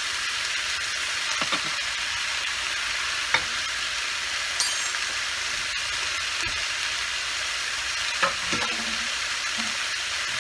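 Chicken pieces sizzling as they sauté in hot oil with ginger and garlic, a steady frying hiss, with a few sharp clicks of a utensil against the pan as it is stirred.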